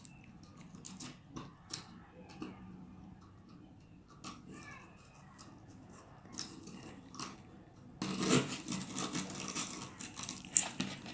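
Faint clicks of a bike horn being handled, then from about eight seconds in, a strip of sandpaper rubbing back and forth between the horn's contact-breaker points, scraping off the carbon that had broken their continuity.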